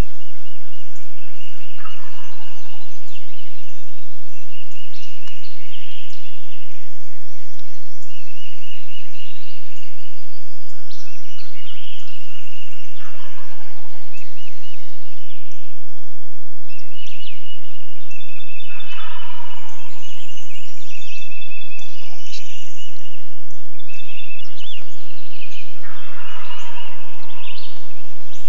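Wild turkey gobbling four times, about 2, 13, 19 and 26 seconds in, each gobble a rattling call that falls in pitch.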